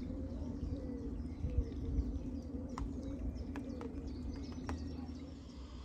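A pigeon cooing in a repeated rolling phrase, with a few short bird chirps, over a steady low hum.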